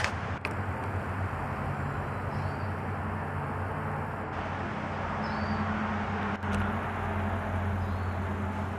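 Outdoor ambience dominated by a steady low mechanical hum, with a bird chirping briefly and faintly three times.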